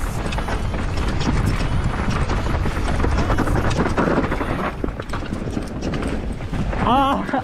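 Mountain bike rolling fast over rough trail ground, with a continuous clatter of tyres, chain and suspension over dirt and stones and a heavy low rumble.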